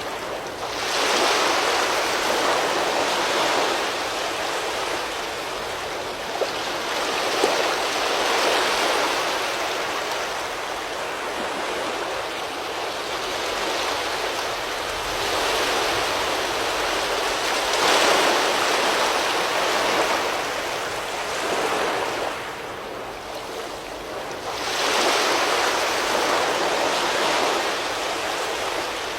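Strong storm wind gusting: a rushing noise that swells and eases every several seconds.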